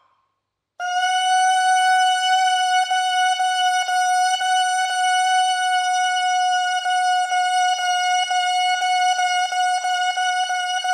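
A bare bassoon reed played on its own, held by the lips without the fingers, sounding one steady note that starts about a second in. From about three seconds in, the tongue repeatedly breaks the note into short articulated 'da' attacks, about three a second.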